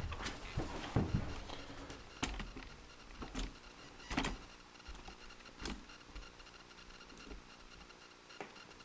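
Scattered light clicks and taps of hands and tools handling metal parts, about half a dozen short knocks in the first six seconds, then little more than faint room tone.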